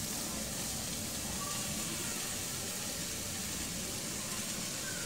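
Quiet, steady sizzle of potatoes and soya chunks frying in oil in a pan as cooked rice is tipped in to make fried rice.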